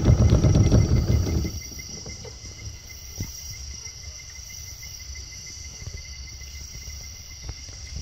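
Night chorus of crickets and other insects: steady, high-pitched trilling. A louder low sound cuts off about a second and a half in.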